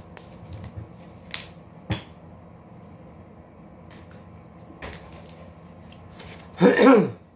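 A clear plastic drinking bottle handled and drunk from, with a few light clicks and one sharp knock about two seconds in. Near the end comes a short vocal sound from the drinker, falling in pitch; it is the loudest thing here.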